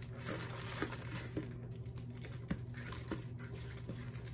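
Packaging rustling and crinkling, with a few light knocks and clicks, as cigars are handled and sorted, over a steady low hum.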